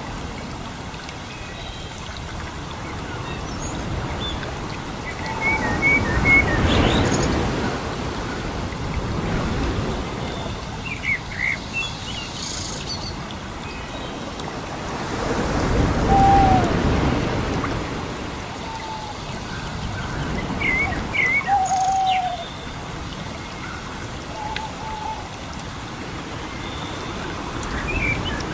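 Birds chirping in short calls and whistled notes over a steady rushing noise, like rain, that swells up twice.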